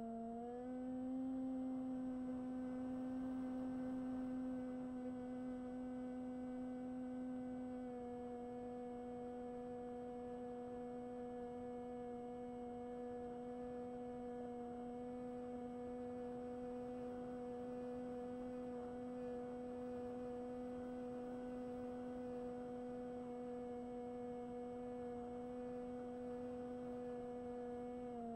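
Electric motor and propeller of a Bixler 1 model plane giving a steady whine. The pitch steps up at the start as the throttle is raised, dips slightly about a third of the way in, and steps back down at the end.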